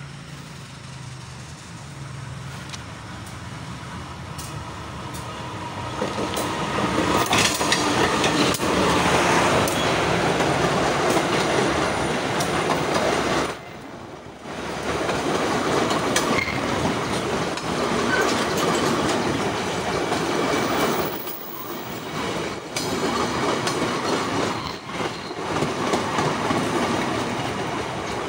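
A passenger train approaches and then runs past close by, the sound of its wheels on the rails growing louder over the first six seconds or so. The sound dips briefly about fourteen seconds in.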